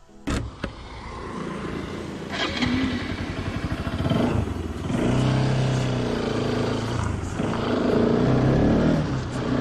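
Bajaj Pulsar RS200's single-cylinder engine pulling away and gaining speed, its note dropping briefly twice as it shifts up, with rising road and wind noise.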